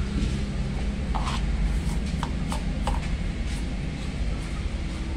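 Scattered light clicks and taps from seasoning jars and utensils being handled over a bowl of marinating pork, over a steady low hum.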